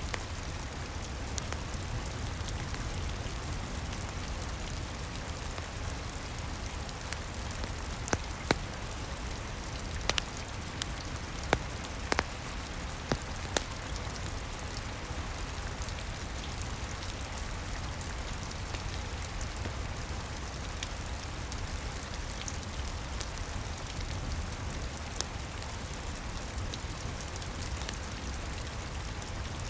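Steady rain with a low rumble, mixed with a crackling wood fire: scattered sharp pops, several close together about a third of the way in.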